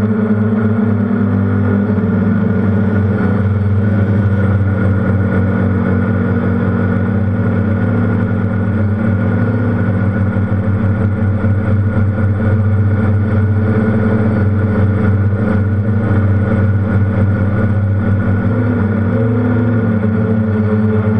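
DJI F330 Flame Wheel quadcopter's brushless motors and propellers humming steadily in flight, heard from a camera mounted on the frame. The pitch shifts slightly near the end as the motors change speed.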